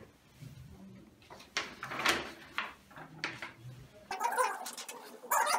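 Sheets of A4 paper rustling and crinkling as they are passed out and taken in hand, in several short strokes. About four seconds in, music cuts in abruptly.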